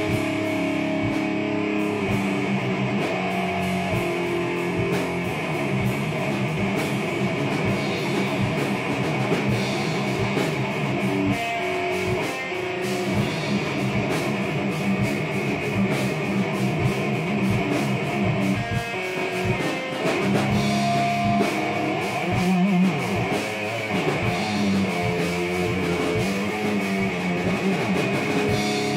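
Instrumental rock band jam: guitar playing over a drum kit.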